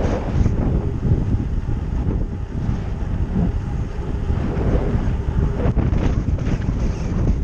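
Wind buffeting a helmet-mounted GoPro's microphone during a fast bicycle descent at about 27 mph: a loud, steady, low rumble of rushing air.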